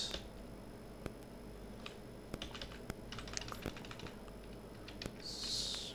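Typing on a computer keyboard: scattered soft key clicks, a few at a time, coming thicker around the middle. A short hiss near the end.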